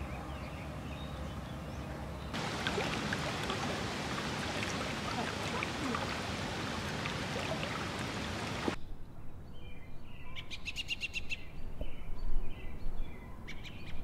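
A faint steady hiss, then from about two seconds in a louder even rush of river water that cuts off abruptly about nine seconds in. After the cut, songbirds chirp and call, with one fast trill near the middle of that stretch.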